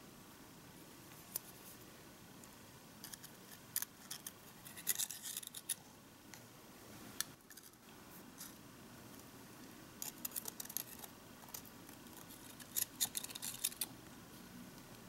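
Foil baking cups crinkling and crackling in short bursts as they are peeled off tiny baked bread rolls, with small handling clicks between.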